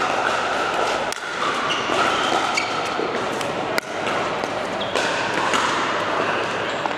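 Pickleball paddles striking balls: a scattering of sharp pops over a steady background din of play and voices.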